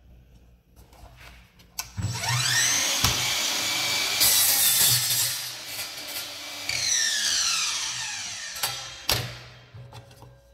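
Einhell TE-MS 18/210 Li cordless miter saw switched on, its motor whine rising as the blade spins up about two seconds in. The blade cuts through a strip of trim at 45 degrees, and the motor winds down with a falling whine after the trigger is released. A sharp knock comes near the end.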